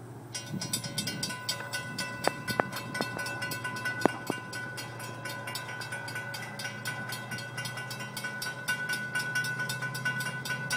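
Railroad grade-crossing warning bell ringing with rapid, evenly spaced strokes while the signals flash and the gate arms lower. A steady low drone runs underneath, and a few sharp knocks come about two and four seconds in.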